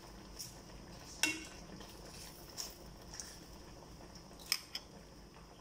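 Metal ladle clinking against a stainless steel cooking pot as it pushes pechay leaves down into the broth: several light clinks, the loudest about a second in and again near the end.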